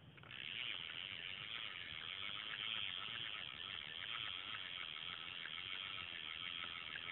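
Insects trilling: a dense, fast-pulsing buzz that starts abruptly just after the start and then holds steady.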